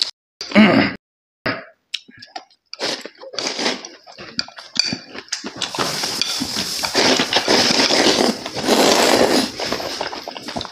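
A man eating noodles: short chewing and smacking mouth sounds, then about six seconds in a long continuous slurp of noodles lasting some four seconds.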